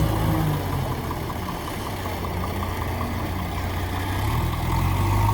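Heavy diesel engine running at a steady idle. It drops in level about a second in and comes back louder near the end.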